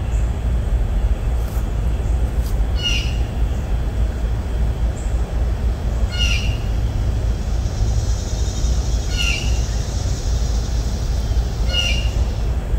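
A bird calling four times, one short call about every three seconds, over a steady low rumble.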